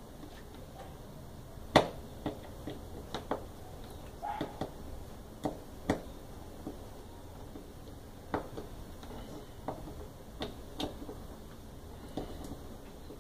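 Irregular metal clicks and light knocks as parts of a Brastemp washing-machine mechanism are handled and fitted on its shaft, the loudest knock about two seconds in and a brief ringing scrape about four seconds in.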